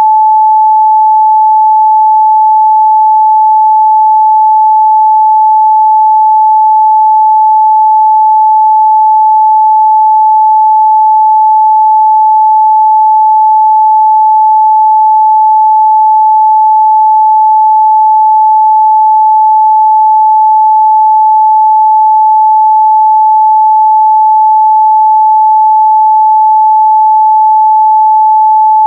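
Pure 867 Hz sine-wave test tone held steady at a constant loud level, a single unwavering mid-range pitch with no overtones.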